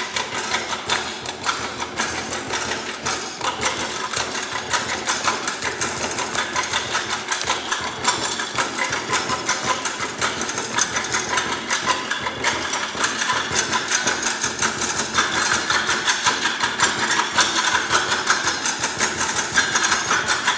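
Several performers drumming fast, dense beats on stepladders, a continuous rapid run of sharp hits.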